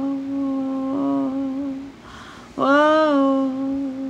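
A single voice humming long, steady held notes without words. One note holds until about two seconds in, and after a short pause a second note at about the same pitch follows.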